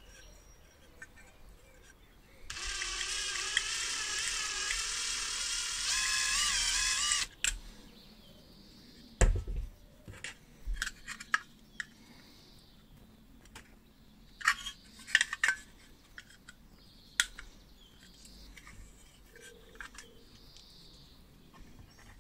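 A burst of high, wavering tones lasting about five seconds, starting and stopping abruptly. Then scattered small clicks, taps and scrapes of a screwdriver and small parts on an old lamp's metal casing, with a sharper knock about nine seconds in.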